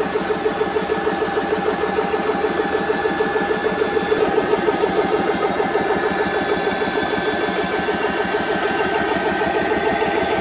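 SMACO HEAP 1 portable high-pressure electric air compressor running steadily with a fast, even pulse. It is pumping air into a 2-litre scuba tank, with the pressure building toward a 3,000 psi fill.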